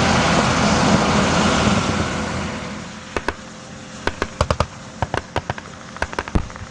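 A military Humvee driving, its engine noise loud and steady, dying away about three seconds in; then a crackle of small-arms gunfire, sharp single shots several a second at an uneven pace.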